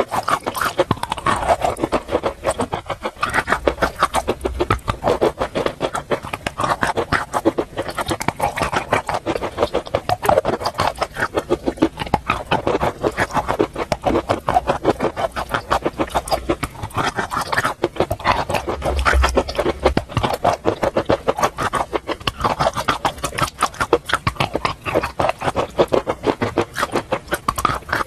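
Close-miked chewing of crunchy chalk with paste: a continuous run of many small, crisp crunches each second.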